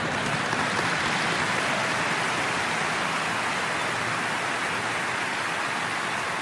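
Large audience applauding: a dense, even clapping.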